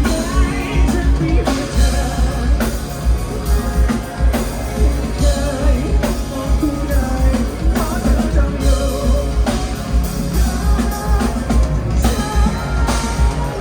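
A rock band playing live: drum kit, guitar and a singer, loud and dense, recorded from the audience.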